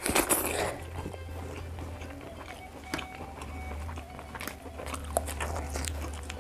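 Eating by hand close to the microphone: a loud smacking mouth sound in the first second as a fingerful of rice goes into the mouth, then chewing with scattered smacks and clicks. Near the end come short rustles of raw salam leaves being picked up, over a low steady hum.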